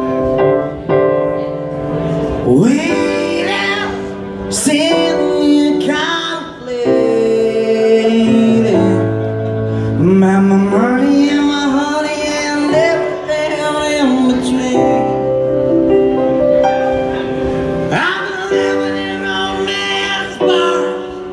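Live band playing a song through a club PA, keyboard chords to the fore with electric guitar and drums, and a singer's voice over it.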